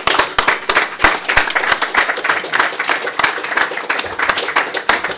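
An audience applauding in a small room, with many overlapping hand claps that begin just before and thin out soon after.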